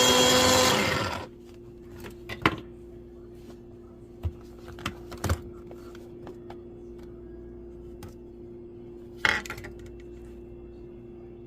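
Electric chopper for garlic running loud and steady, then switching off and winding down about a second in. After it a few scattered light knocks and clatters follow, the sharpest about two and a half seconds in and another about nine seconds in, over a faint steady hum.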